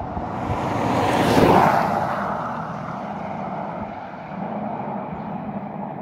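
Road and wind noise of a car driving along a highway, heard from inside the car through a side window: a steady rushing with a low rumble, swelling loudest about a second and a half in.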